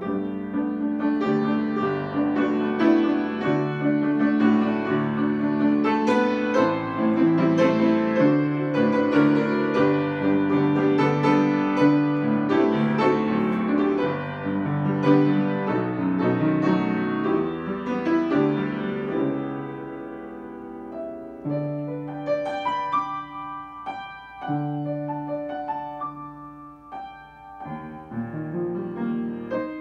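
Grand piano played solo, many notes at once in a full, busy passage that turns softer and sparser about two-thirds of the way through.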